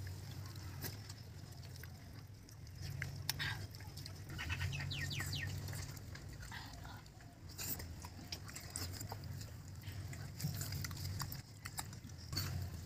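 Eating by hand from a banana leaf: fingers squishing and mixing rice, with wet chewing and lip-smacking, over a low steady rumble.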